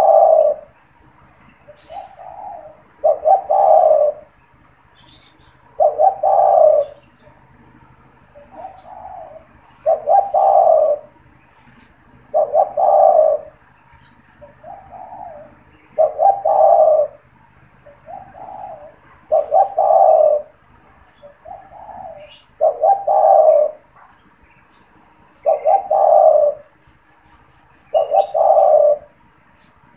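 Male spotted dove (tekukur) cooing over and over: a loud low coo phrase about every three seconds, with softer notes between. A faint rapid high twitter comes near the end.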